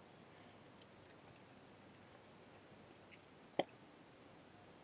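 Near silence with a few faint clicks and one sharper click about three and a half seconds in.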